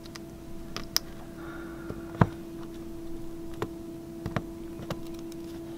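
Scattered light clicks and taps of a steel drill bit pressing small plastic chips into a screw hole in a plastic dinghy hull. One sharper click comes about two seconds in, over a steady hum.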